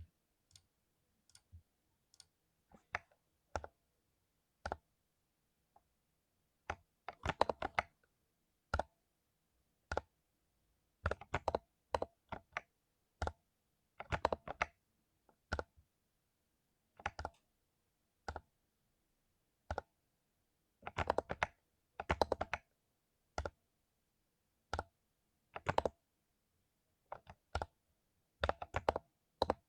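Mechanical keyboard with lubed Cherry MX Silver linear switches being typed on in irregular bursts: quick runs of several keystrokes mixed with single, isolated key presses.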